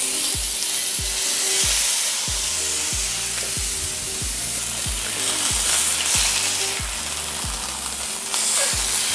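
Chicken leg quarters sizzling in hot olive oil in a preheated cast iron skillet, laid in skin side down with the oil a little too hot; the sizzle swells a few times as pieces go in. Background music with a steady beat plays underneath.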